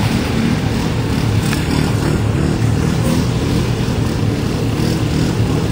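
ATV engine running steadily as the quad is driven over rough dirt mounds.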